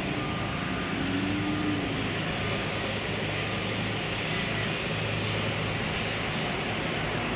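Airbus A321 jet airliner on final approach with landing gear down, its engines a steady, continuous jet rumble.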